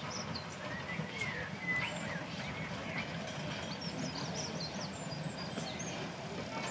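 Small birds chirping and singing, many short chirps and trills, over a steady low rumble.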